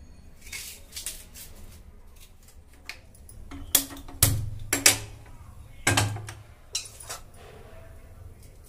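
A hand-held spark gas lighter clicking repeatedly at a gas stove burner, a few sharp clicks with two heavier thuds in the middle, until the burner lights. Fainter scraping of a knife peeling an onion comes before.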